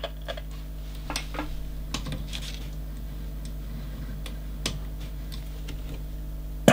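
Scattered light clicks and knocks from the front-panel knobs and switches of an Icom IC-201 transceiver being turned and pressed, over a steady low hum.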